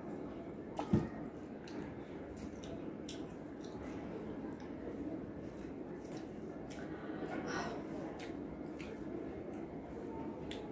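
Close-up eating sounds: chewing and wet mouth noises with small scattered clicks of fingers on plates, over a steady room hum. A single sharp knock about a second in.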